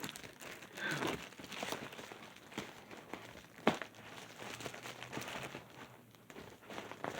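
A mailing package being handled and opened: scattered rustling and small clicks of packaging, with one sharper click a little past the middle.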